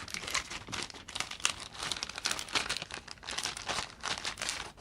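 Irregular crinkling and rustling of a paper user manual as it is handled, unfolded and leafed through.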